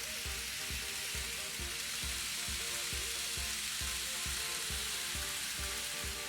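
N gauge model train running on track: a steady hissing rattle of wheels and motor. Under it is background music with steady tones and a low beat of about two to three pulses a second.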